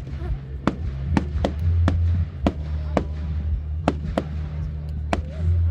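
Fireworks going off in quick succession, a sharp bang about every half second, over music with a heavy bass.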